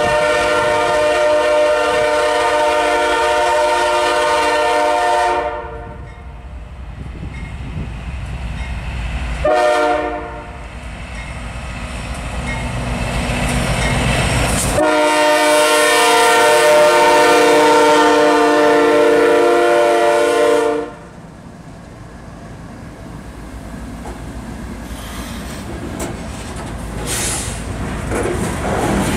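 Air horn of a CSX GE C40-8W diesel locomotive sounding for a grade crossing: a long blast, a short one about ten seconds in, and a final long blast of about six seconds. After the last blast the locomotives and grain hopper cars rumble past, their wheels running over the rails.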